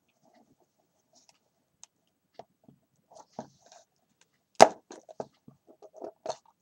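Scattered light taps and clicks of a small decorated gift box being handled and turned over on a table. There is one sharper knock about four and a half seconds in, followed by a run of small taps.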